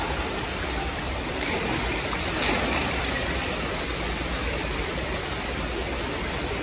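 Fountain jets of a pool water-play structure spraying and splashing steadily into the water, a constant rushing hiss, with two brief sharper sounds about a second and a half and two and a half seconds in.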